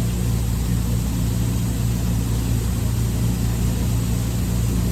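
Steady, loud drone of running machinery: a low hum made of several fixed tones that holds unchanged throughout.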